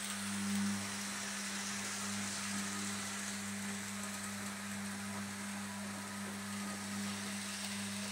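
Electric model train running on sectional track: a steady electric hum from its motor over a continuous hiss of wheels rolling on the rails.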